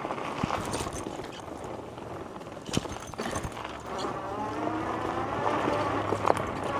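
Electric bike being ridden: a steady rush of wind and tyre noise with a few sharp knocks and rattles over bumps. From about four seconds in, a whine rises slowly in pitch over a low hum.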